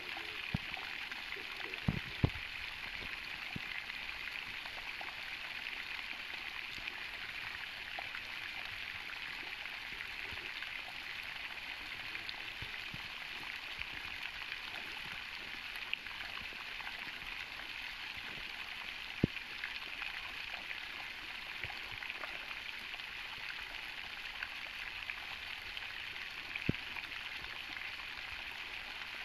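Steady rushing of running water, with a few short sharp knocks along the way.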